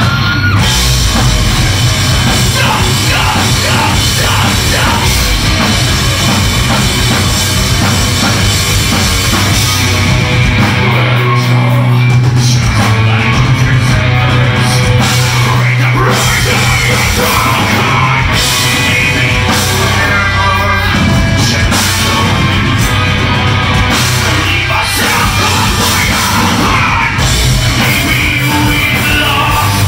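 Heavy rock band playing live: drum kit, distorted electric guitars and bass, with a singer yelling over the music. Loud and steady.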